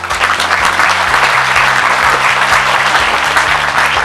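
An audience applauding steadily, with many hands clapping, over background music whose low notes change in a steady pattern.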